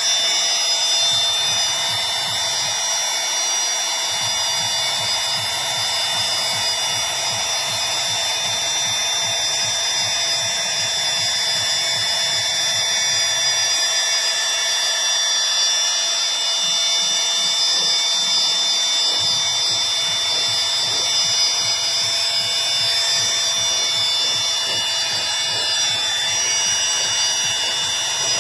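Handheld electric spray gun running steadily, its motor giving a steady whine over the hiss of paint spraying, as it lays a first coat of colour onto a car door panel.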